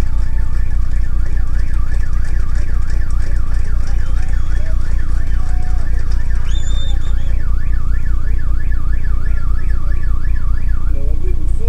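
An electronic siren or alarm wailing, its pitch sweeping up and down several times a second, over a loud, low pulsing hum.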